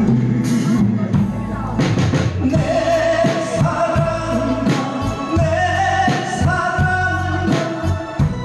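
Music: a drum kit played live along with a backing track, in an instrumental stretch between sung lines, with a sustained melody line over steady drum hits.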